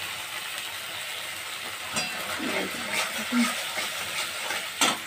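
Spice masala paste sizzling in a metal kadai. From about two seconds in, a spatula scrapes and clicks against the pan as it is stirred, with one sharp knock near the end.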